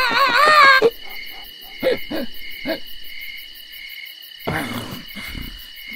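A short, loud hoot-like cry with a strongly wavering, warbling pitch, lasting under a second. It is followed by quieter scattered short sounds over a faint steady high tone, with a brief rushing noise a little past the middle.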